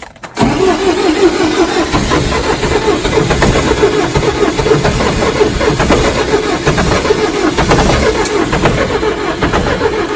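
Starter cranking a cold Unimog diesel engine for nearly ten seconds, turning it over with a pulsing churn but not firing, then stopping. The owner blames the cold and the 7,600-foot altitude for the failure to start.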